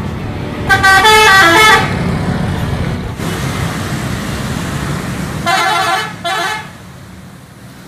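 Tour bus's multi-tone musical horn playing a quick run of changing notes about a second in, over the low rumble of bus engines and traffic. Near the end a bus gives two shorter multi-note horn blasts.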